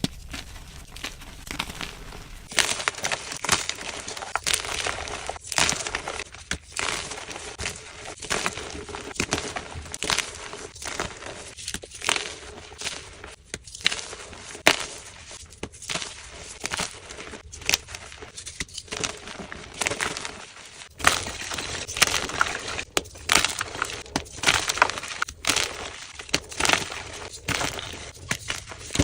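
Dyed gym chalk blocks being crushed and crumbled, a dense run of dry crunching and crackling with many sharp snaps; the crunching is quieter for about the first two seconds.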